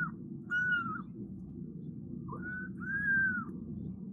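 Very young kitten mewing: four short, high-pitched mews, each holding a level pitch and dropping at its end, the last two close together.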